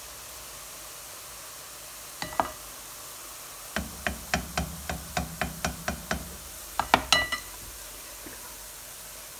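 A spoon tapping a perforated boondi ladle held over hot oil, knocking gram-flour batter through its holes as droplets: a couple of knocks, then a steady run of about a dozen taps at four or five a second, then a last quick cluster, the loudest.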